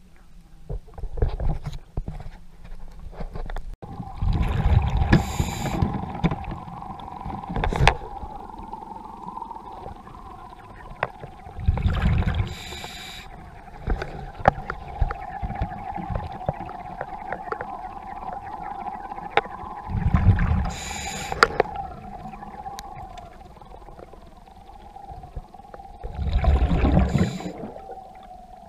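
Underwater sound of a diver breathing: a rush of exhaled bubbles about every seven seconds, five times, over a steady hum and small clicks.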